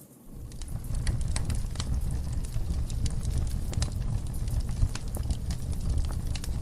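Wood fire burning in a fireplace: a steady low rumble of flames with frequent sharp crackles and pops from the logs. The sound dips briefly at the very start and fades back in within about half a second.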